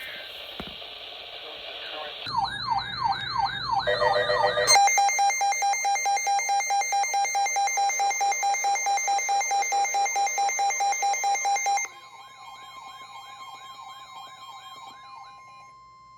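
Electronic alert siren and alarm tones. Radio hiss gives way about two seconds in to fast warbling sweeps. A loud pitched alarm tone then pulses about five times a second for some seven seconds, and it drops off suddenly to quieter warbling over a steady tone.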